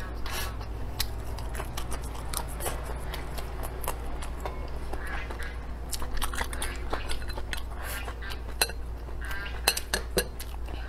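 Close-up eating sounds: chewing, with wooden chopsticks clicking against a ceramic rice bowl and plate in short sharp taps, a few louder clicks near the end, over a steady low hum.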